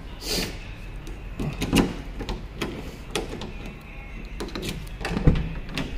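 Scattered light knocks and clicks, with a louder low thump about five seconds in, as the Renault Kwid's driver door is unlatched and opened.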